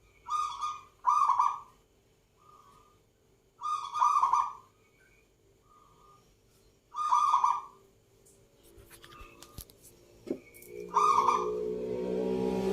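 Zebra dove (perkutut) cooing: short, hollow, pitched coo phrases repeated every few seconds, some loud and some faint. A louder droning sound builds near the end.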